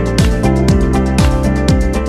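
Background music with a steady beat, about two beats a second, each beat a deep drum hit that drops in pitch.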